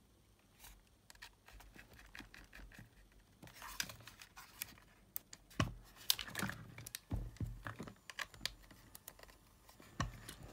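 Small clicks and scrapes of a metal-cased Sony WM-EX900 cassette Walkman being handled: a small screwdriver working at a case screw, then the player picked up, turned over in the hand and put down, with a few sharper knocks.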